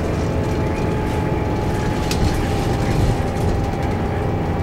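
Scania K320UB bus with ZF Ecomat automatic gearbox heard from inside the cabin on the move: steady low engine and road rumble with a thin steady whine over it. A brief rattle of interior fittings about two seconds in.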